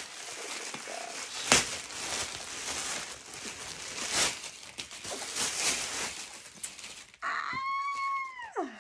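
Thin plastic poly bag crinkling and rustling as a backpack is pulled out of it, with a sharp crackle about a second and a half in. Near the end a woman lets out a high excited squeal, held for about a second and then falling in pitch.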